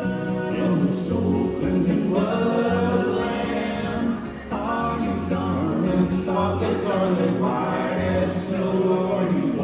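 A choir singing a gospel song over a steady bass accompaniment.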